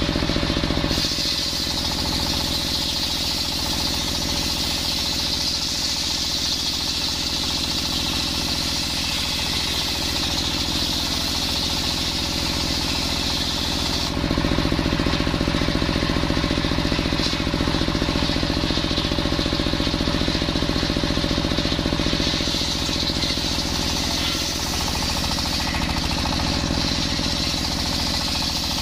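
Engine-driven circular sawbench ripping coconut wood: the engine runs with a steady, fast chug while the spinning blade cuts through the plank. The high cutting sound shifts abruptly about halfway through, then carries on.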